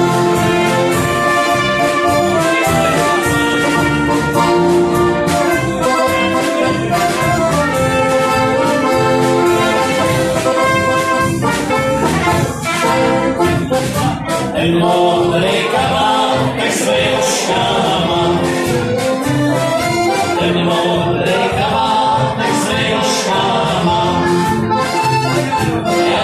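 Small Czech brass band playing an instrumental passage of a folk song: trumpet and saxophone carrying the melody over accordion, a brass bass horn and drums keeping a steady beat.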